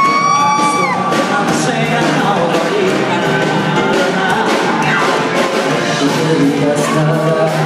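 Live band music with a steady beat, played on stage in front of a crowd. A held high-pitched scream from the audience is heard in the first second.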